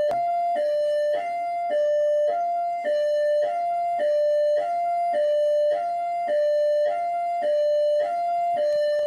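Rio de Janeiro military police (PMERJ) electronic hi-lo siren: two tones alternating steadily, high then low, each held about half a second.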